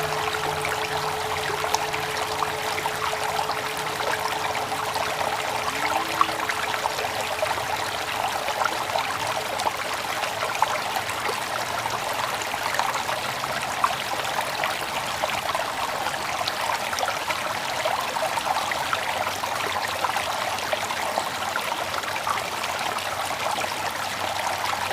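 Running water flowing steadily, like a small stream, with faint droplet ticks through it. A few held musical tones fade out in the first few seconds.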